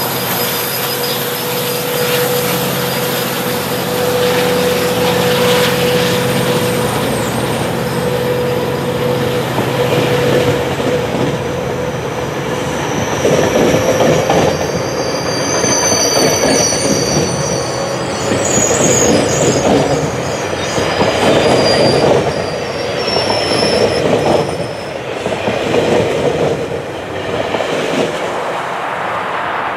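GO Transit bilevel passenger coaches rolling past on the rails, their wheels clattering in a repeating rhythm. From about halfway through, high-pitched wheel squeal rises over the clatter. A steady hum and a high tone carry through the first half.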